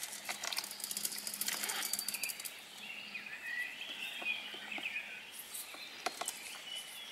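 Rustling, clicking and dripping as a wet mesh funnel trap for newts is handled and tipped out over a plastic tub, busiest in the first couple of seconds. A small bird chirps and sings faintly from about three seconds in.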